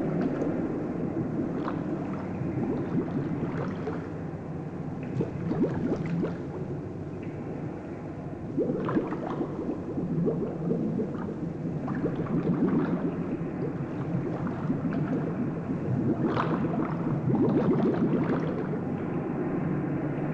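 Underwater bubbling and gurgling over a steady low rumble, with irregular louder surges of bubbles from the divers' scuba regulators.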